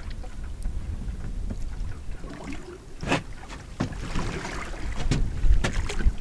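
Wind rumbling on the microphone and sea swell moving against a small open boat, with a few sharp knocks scattered through.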